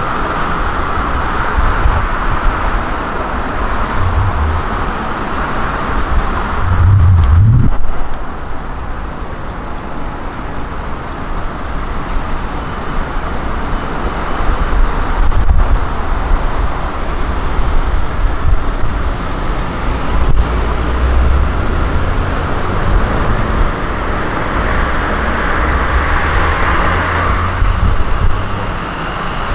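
Steady road traffic noise with uneven low rumble, swelling to its loudest about seven seconds in and dropping back a second later.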